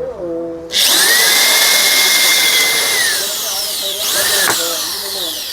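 Electric drill running and boring holes, likely in the red acrylic panel of the amplifier cabinet. It starts at full speed about a second in, then its whine sags and recovers in pitch as the bit bites under load.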